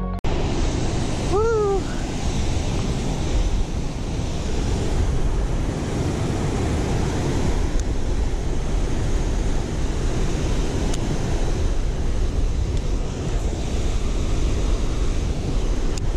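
Water pouring over a spillway, a steady rush, with wind buffeting the microphone.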